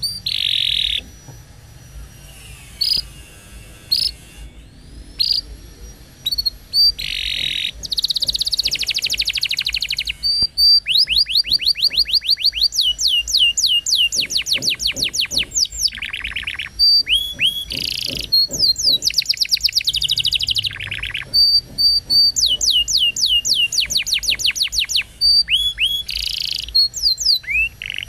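Canary singing: scattered short chirps at first, then from about a third of the way in a long unbroken song of fast trills, each phrase a rapid run of repeated high notes.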